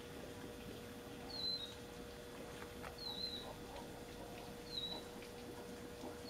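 A bird repeating a short, high, slightly falling call about every second and a half, three times, over a faint steady hum.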